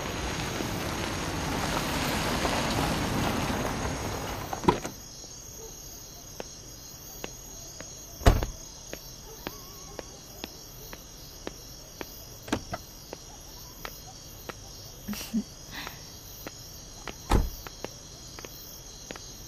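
Crickets chirping steadily. For the first few seconds a broad rushing noise swells and fades, then cuts off suddenly. Later a few dull thumps and light clicks stand out.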